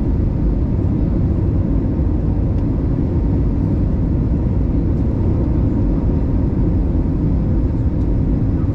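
Steady low roar of an Airbus A320's jet engines and rushing air heard inside the passenger cabin on the descent to landing, with a faint steady hum underneath.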